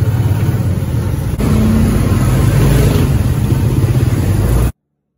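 Motorcycle engine of a tricycle running as it rides, heard from inside its sidecar with road and wind noise; the sound cuts off suddenly near the end.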